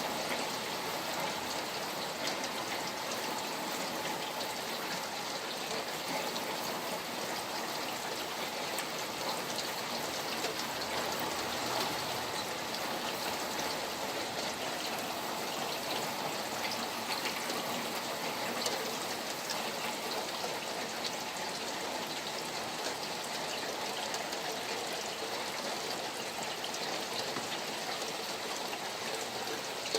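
Rain falling beside flowing water: a steady wash of water noise with a fine patter of drops.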